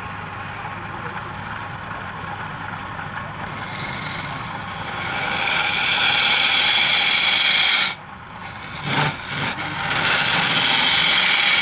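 Wood lathe running while a hand-held turning chisel scrapes and cuts into the face of the spinning wood. The cutting hiss grows louder about halfway through, breaks off briefly about two-thirds of the way in, then resumes.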